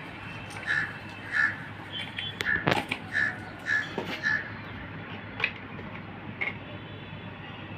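A crow cawing: a run of about six short caws roughly half a second apart in the first half, then a couple of fainter calls later. A few sharp clicks or knocks fall among them, the loudest near the middle of the run.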